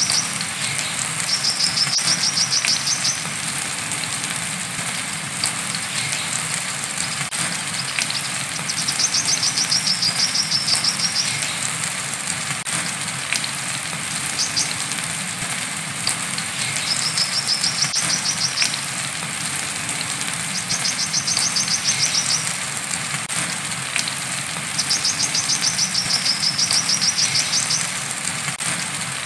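Brown-throated sunbird (kolibri kelapa) giving its rapid, high 'wiceh' trill five times, each lasting about two to three seconds, over a steady hiss of rain.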